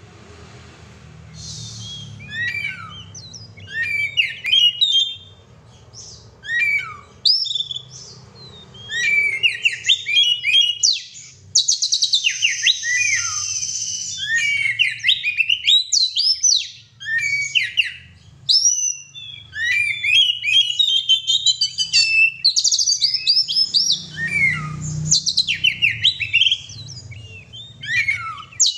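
Oriental magpie-robin (kacer) in full song: a fast, varied run of whistles, trills and chattering notes. It sings in short phrases at first and almost without pause from about a third of the way in.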